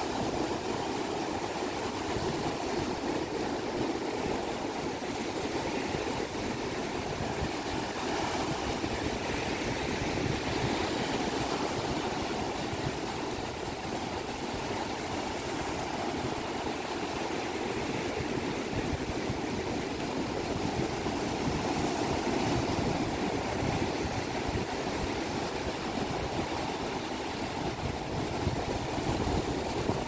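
Low ocean waves breaking and washing up over a flat sandy beach: a steady wash of surf that swells gently now and then.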